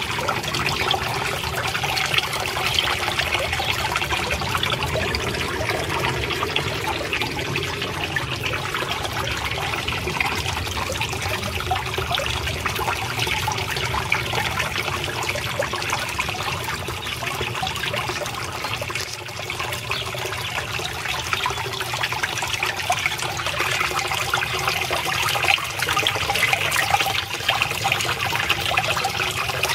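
Water trickling and splashing steadily into a small garden fish pond.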